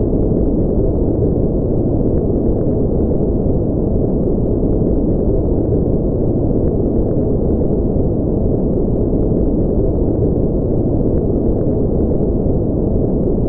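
Steady, unchanging generated sleep noise, deep and muffled with no high hiss, like a low rumble.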